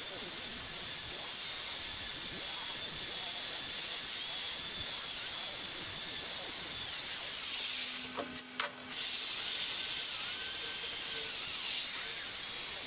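Handheld die grinder running steadily with a high hiss as it grinds corrosion from the water-passage openings of a cast-iron Toyota 2C diesel engine block. A little past the middle it cuts out several times in quick succession, then runs on.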